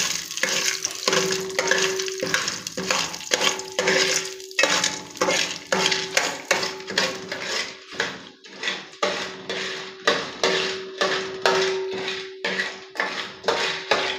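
Metal spoon stirring and scraping unpopped popcorn kernels around a steel pot, in repeated strokes about once or twice a second.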